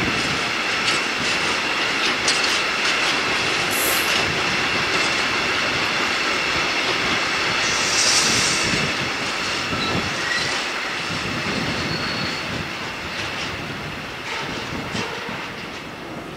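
Long container freight train rolling past, its wagon wheels clattering over the rail joints, with brief high squeals from the wheels about four and eight seconds in. The sound fades somewhat near the end.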